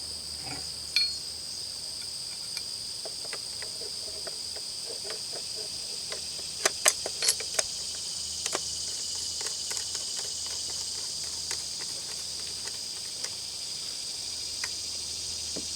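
A steady, high-pitched chorus of insects, with scattered sharp metallic clicks and knocks from a Henry AR-7 .22 survival rifle being assembled. There is one click about a second in, and a louder cluster of clicks about seven seconds in.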